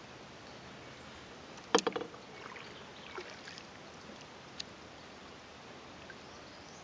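Paddling a small wooden pirogue on a river: a sharp knock of the paddle against the wooden hull about two seconds in, then a few soft clicks and drips of water over a low, steady background hiss.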